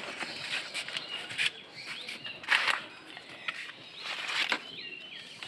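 A few short rustling, scraping noises as dragon fruit cactus stems are handled and trimmed, with small birds chirping in the background.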